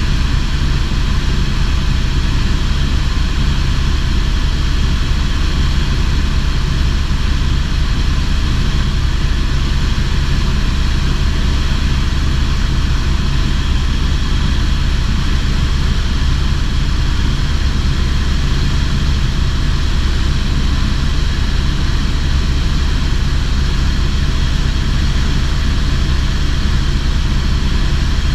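Steady drone of a tour helicopter in level flight, engine and rotors heard from inside the cabin, with a deep rumble underneath.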